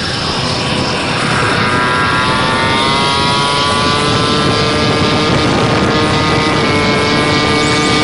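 Motobecane moped's small two-stroke engine running under way, its buzzing pitch climbing as it picks up speed and then holding steady, over rushing wind noise on the microphone.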